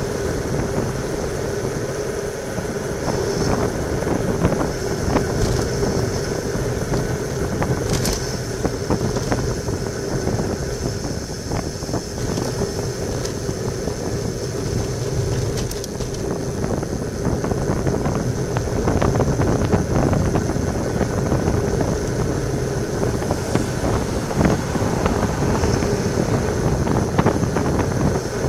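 Steady wind rush and tyre-on-asphalt rumble from a road bicycle descending at about 35 km/h, heard through a bike-mounted camera's microphone.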